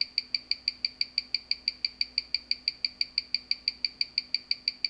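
Omega Speedmaster mechanical watch ticking, about six even ticks a second (21,600 beats per hour), picked up by the Weishi No. 1900 timegrapher's microphone stand and played through its speaker. The readout for this beat shows the watch running about 17 seconds a day fast with 252° amplitude.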